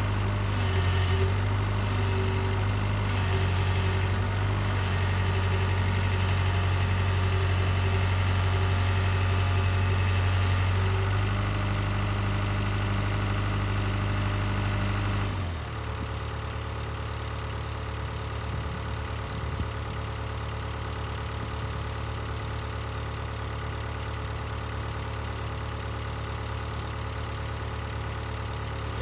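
Small tracked excavator's diesel engine running steadily. About halfway through, its note changes abruptly and it runs quieter at a lower, steady hum.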